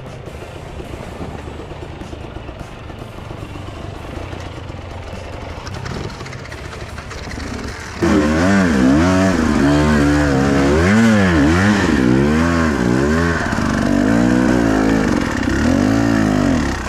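Enduro dirt bike engine running at low revs on a rocky trail. About halfway through it turns loud, revving up and down over and over as the bike churns through a deep mud rut.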